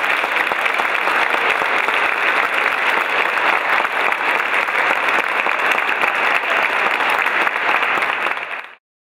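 Audience applauding, many hands clapping steadily, then fading and cutting off abruptly near the end.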